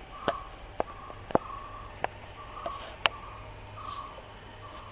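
Radio-controlled rowing boat's oar mechanism working through its strokes: a short mid-pitched sound repeating about every two-thirds of a second, with sharp clicks five times, over a low steady hum.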